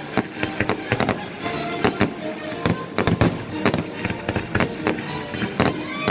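Fireworks display going off in quick succession: many sharp, irregular bangs and crackles, several a second, over a steady rumble of the show.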